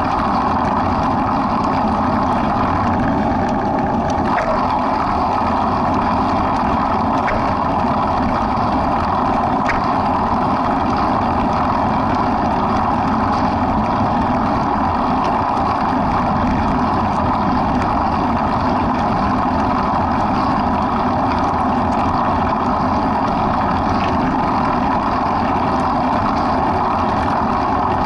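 Steady drone of a motor vehicle driving slowly, with road and wind noise.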